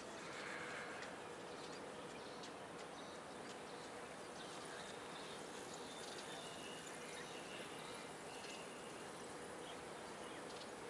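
Faint outdoor ambience: a steady hiss with a low steady hum, and scattered faint, short high chirps.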